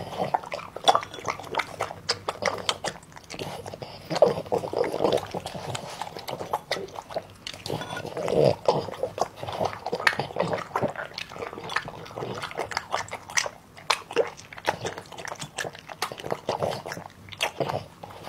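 French bulldog eating noodles: wet chewing and lip-smacking, many quick clicks, with a longer noisy sound every few seconds.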